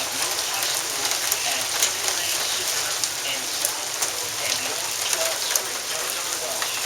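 Steady heavy rain falling, with many sharp ticks of drops striking hard surfaces close by.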